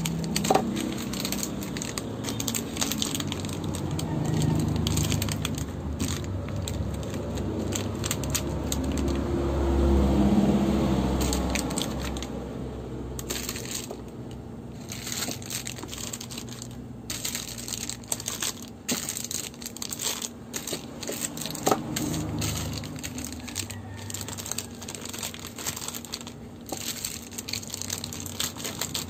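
Plastic-wrapped bar soaps crinkling and rustling as they are handled and packed into a plastic organizer tray, with frequent small clicks and knocks of the bars against each other and the tray. The handling is loudest about ten seconds in.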